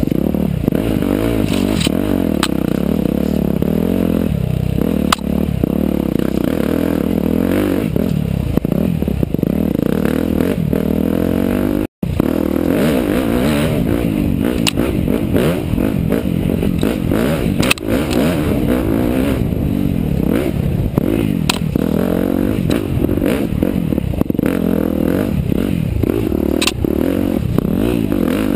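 KTM 305 SX-F dirt bike with an HT Racing big-bore kit, a single-cylinder four-stroke, ridden hard off-road, its revs rising and falling constantly through the gears and corners, with scattered sharp clicks from the trail. The sound cuts out briefly near the middle.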